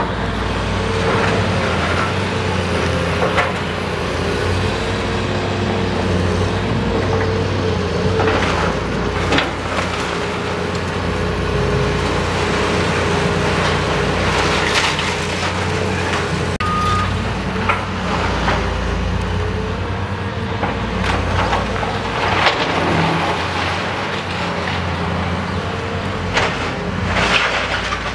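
Cat hydraulic excavator's diesel engine running steadily under load while its demolition grapple tears into a building, with sharp cracks and crashes of breaking wood, metal and falling debris every few seconds.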